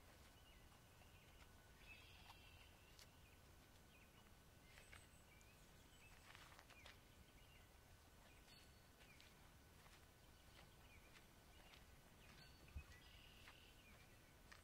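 Near silence: faint outdoor marsh ambience with a few short, distant bird calls and scattered soft clicks.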